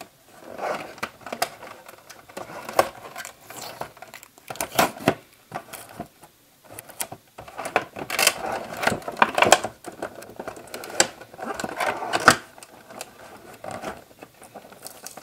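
Cardboard and plastic packaging being handled and opened: irregular clicks, taps and crinkling rustles, in short clusters with brief pauses.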